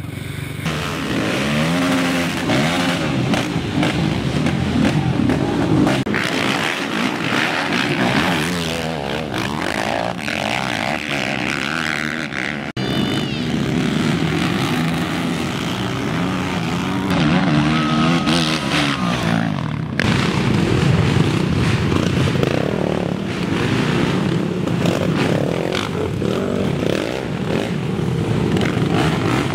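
Racing ATV (quad) engines revving hard, the pitch rising and falling with the throttle. There are abrupt changes where clips are cut together, and through the middle several quads accelerate at once.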